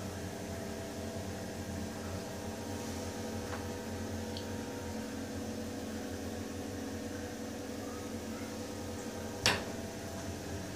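A bath bomb fizzing as it dissolves in bathwater, a faint hiss under a steady mechanical hum. One sharp click about nine and a half seconds in.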